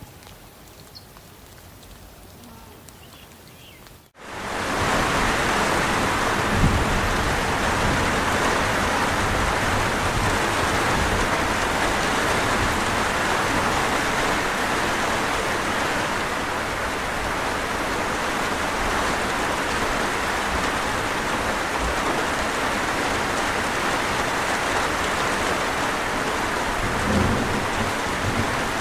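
Heavy, steady rain that starts suddenly about four seconds in after a quiet stretch, with low thunder rumbling twice.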